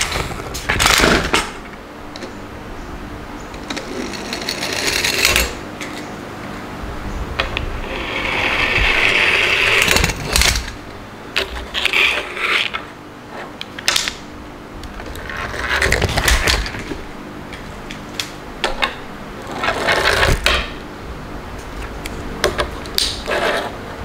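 Plastic toy trucks rolling down a wooden board on their plastic wheels, with repeated knocks and clatter as they are set down and tumble into a slit sheet of paper, which rustles.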